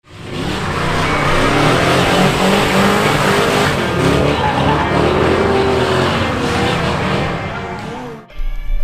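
Small-block Chevy V8 in a 1987 Toyota pickup revving up and down while the truck drifts, with tire squeal; the sound fades out about eight seconds in.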